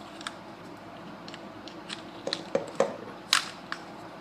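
Hard plastic parts of a transforming action figure being handled and snapped together: scattered small clicks and taps, coming more often in the second half, the loudest a sharp click a little past three seconds in.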